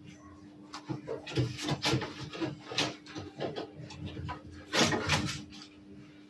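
Maremma Sheepdog puppies scuffling at play: irregular knocks, bumps and scrabbling against the wooden sides of their pen and on the tiled floor, loudest about five seconds in.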